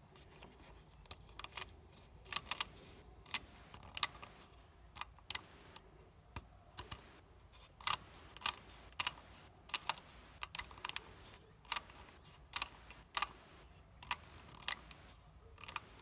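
A hay baler's mechanical bale counter being reset by hand: its knob is turned, and the digit wheels click over in a series of sharp clicks, often in pairs, one or two a second, until the count reads zero.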